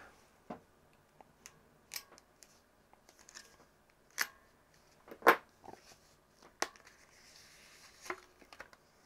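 Faint, sparse clicks and scrapes of a pointed tool slitting black tape on a photomultiplier tube, with the loudest click about five seconds in. Near the end comes a soft crinkle as a sheet of thin metal foil shielding is peeled off the tube.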